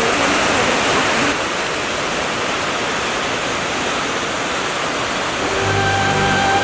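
Waterfall: a steady rush of falling water, easing a little about a second in. Music with long held notes comes in near the end.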